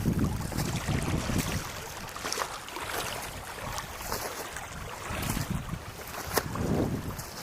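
Strong wind buffeting the microphone in gusts, a low rumble that is heaviest at the start, eases, and rises again about five to seven seconds in.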